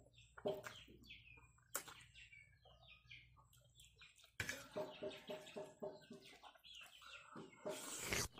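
Faint background chirping of small birds and a quick run of clucks from a chicken in the second half, over a few soft slurping and fork noises of spaghetti being eaten.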